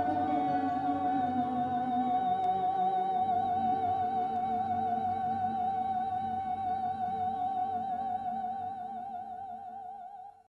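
Music: one long high note held with vibrato for about ten seconds over a softer accompaniment that fades away, then cut off abruptly.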